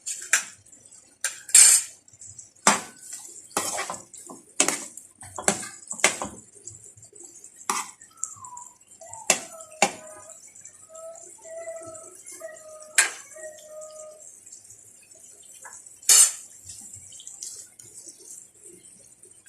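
Metal utensil clinking and knocking against a cooking pan while stirring: a quick run of strikes over the first half, then only a few louder knocks.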